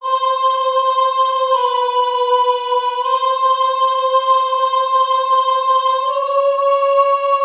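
Soprano voice singing long held notes without words, unaccompanied, entering out of silence. The note dips slightly about a second and a half in, returns at about three seconds, and steps up higher near six seconds.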